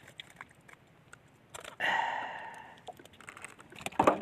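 Light clicks of hands handling fishing line and bait against a wooden boat, a breathy exhale of about a second roughly two seconds in, and a sharp knock on the hull near the end.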